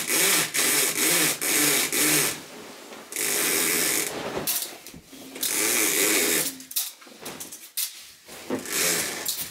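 Window blind being raised by its pull cord, the blind's mechanism rattling with each quick pull in a rapid even run, then in a few longer pulls.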